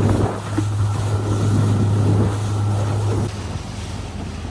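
Motorboat engine running steadily with wind on the microphone; the engine eases off about three seconds in.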